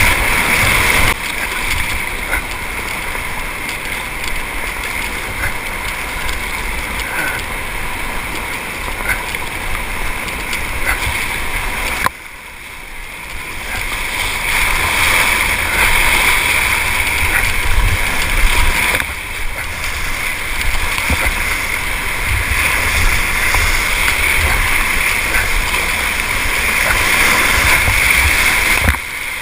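Whitewater rushing and splashing around an inflatable kayak running a rapid, over a low, uneven rumble of wind on the microphone. The level drops abruptly about twelve seconds in, then builds back up.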